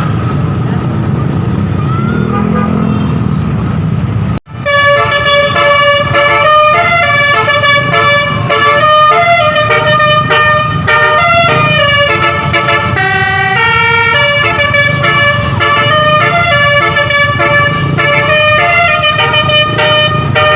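Road and engine noise, then after a sudden break about four seconds in, a tour bus's 'Basuri' telolet horn plays a lively melody of quickly changing notes.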